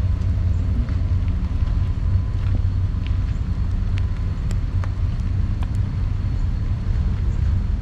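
Steady low rumble of a Norfolk Southern freight train with its diesel locomotives, heard from far off, with scattered faint clicks over it.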